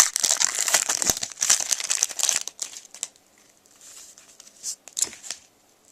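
Trading card pack wrapper crinkling and tearing as it is ripped open, dense for about the first two and a half seconds, then a few faint rustles as the cards are handled.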